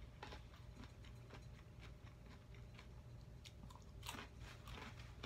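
Close-up mouth sounds of chewing a raw carrot stick: faint, irregular crunches, with a louder run of crunches about four seconds in.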